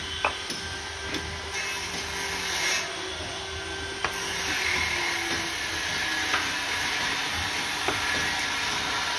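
Bricks being laid by hand on a wall: a few short, sharp knocks of brick on brick over a steady hiss.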